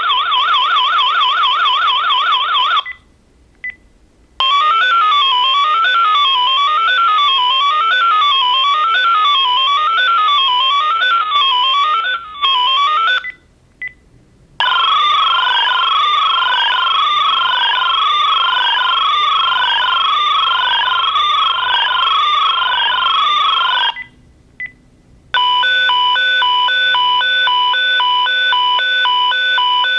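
Landline phone sounding a loud, piercing, high-pitched electronic alarm tone that changes pattern three times, with a brief silence and a short blip between each pattern. It starts as a fast warble, becomes a tone sweeping up and down about once a second, then crossing sweeps, and ends as pulsing beeps.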